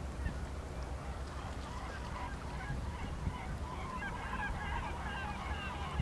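A flock of birds calling: many short overlapping calls, sparse at first and growing denser from about halfway through, over a steady low rumble.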